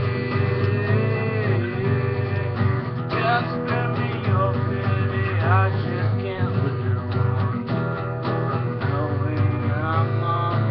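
Acoustic guitar strummed in a steady rhythm, chords ringing continuously.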